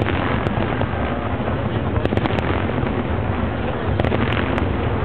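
Fireworks display going off: a continuous deep rumble of bursts, with sharper bangs about half a second in, a quick cluster around two seconds in and another around four seconds in.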